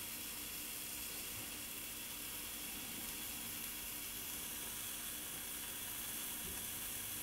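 Risotto cooking in a stainless steel pot while it is stirred with a wooden spoon: a faint, steady sizzling hiss.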